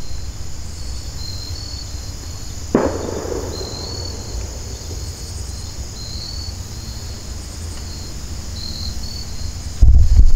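Insects chirping in short, irregular bursts. About three seconds in there is a single sharp thump that rings out and fades over a second or so, and a low wind rumble on the microphone rises near the end.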